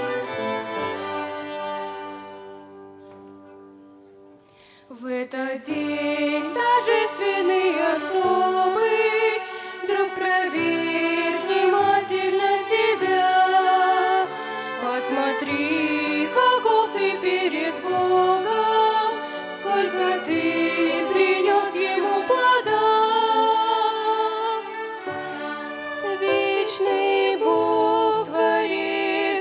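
Violin ensemble playing a slow hymn melody in several parts. The playing fades out about three seconds in and comes back in fuller just before five seconds.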